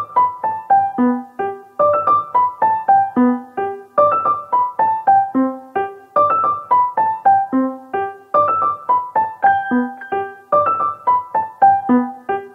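Background piano music: a run of single notes falling in pitch, repeated over and over and starting again about every two seconds.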